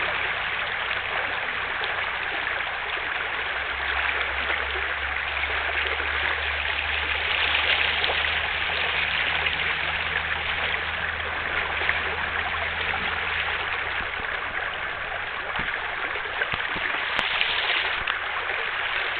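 Choppy water rushing and splashing in a steady wash, with a faint low hum underneath through the middle.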